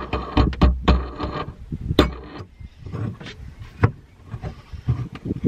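A wing nut being turned by hand down the threaded hold-down bolt of a spare wheel in a car's boot well: scraping and rubbing of metal, with a couple of sharp clicks and knocks as the wheel shifts.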